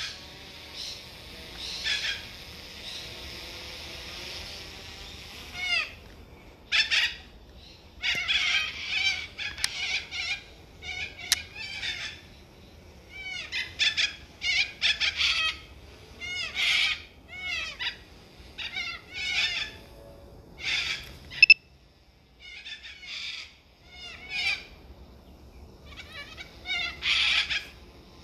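Cockatoo giving harsh, raspy screeches in clusters of repeated calls, with one sharp, loud call about 21 seconds in. A steady high hum runs under the first six seconds.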